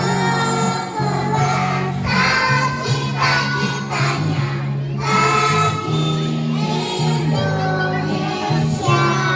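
Kindergarten children's choir singing together over a musical accompaniment with a steady low backing.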